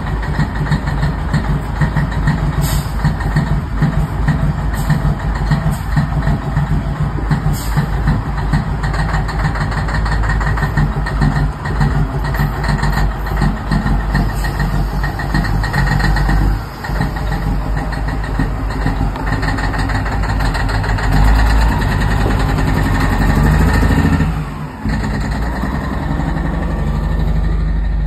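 Semi-truck's big diesel engine running loudly through tall straight exhaust stacks, blowing black smoke. It keeps a steady, deep, uneven drone, with a louder stretch about three quarters of the way through and two brief drops in level.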